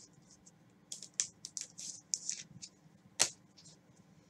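Trading cards and packs being handled on a table: a quick run of short rustling swishes, then one sharp click about three seconds in.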